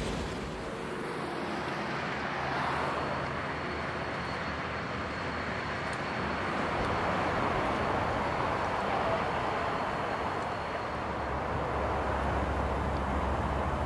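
Steady outdoor background rumble and hiss, with a deeper low rumble coming in about twelve seconds in.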